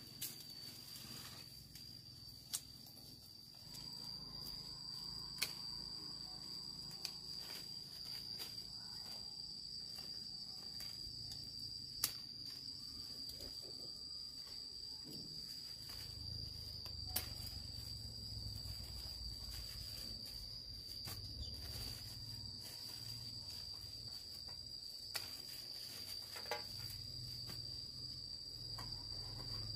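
Insects chirring steadily at a single high pitch, with a few sharp clicks scattered through.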